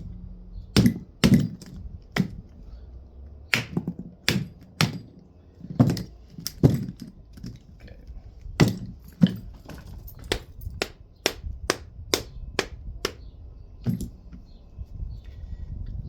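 Repeated sharp blows from a dead-blow mallet striking a seized diesel starter motor's housing to knock its case apart, irregular and often in quick pairs, about one to two a second with a short pause a little past the middle.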